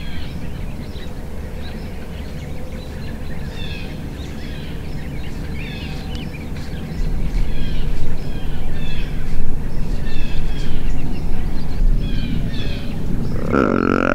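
Small birds chirping over and over in the background, each chirp a short falling note, over a low rumble of outdoor air noise that gets louder about halfway through. Near the end comes one brief louder pitched sound.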